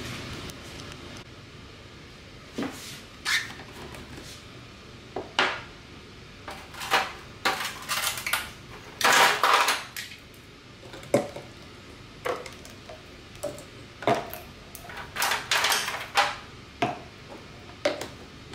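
Plastic shaker bottle and its screw cap being handled on a wooden counter: a run of irregular knocks and clatters, busiest around the middle, with the cap being screwed back on near the end.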